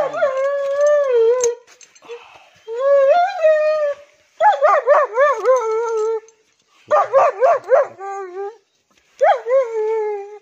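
German Shepherd dog howling and crying: a long howl that sags in pitch, then several bouts of quick, wavering, yelping cries.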